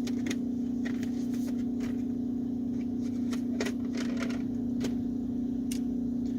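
Scattered light clicks and small knocks of objects being handled, such as a cable and charger being searched for, over a steady low hum.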